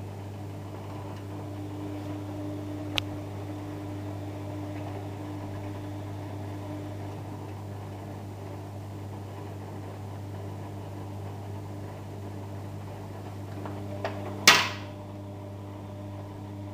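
Bosch Maxx Easycare 60 washing machine draining after the main wash: a steady low electric hum of the drain pump with the drum turning the wet laundry. The drainage is quite slow, which points to a drain filter in need of cleaning. A small click about three seconds in and a louder sharp knock near the end.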